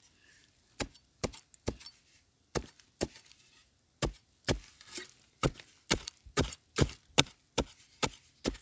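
Metal digging blade striking hard, dry soil over and over while digging out a wild yam tuber. The sharp strikes come sparsely at first, then about two a second.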